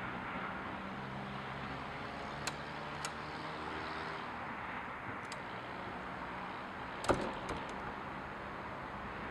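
Steady low engine hum that shifts slightly in pitch, broken by a few sharp clicks and a louder cluster of knocks about seven seconds in.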